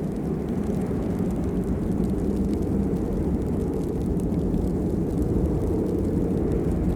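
Steady heavy rain: a deep, even rush of falling water with faint scattered drop ticks on top.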